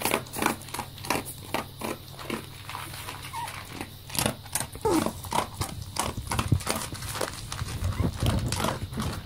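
Dogs eating dry kibble from a large metal basin: a quick, irregular run of crunches and clicks as they chew and push through the pellets.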